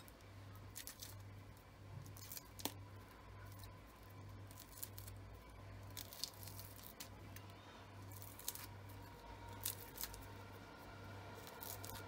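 Charred, papery skin of fire-roasted eggplants being peeled off by hand: scattered small crackles and tearing sounds. Underneath is a low hum that pulses about once a second.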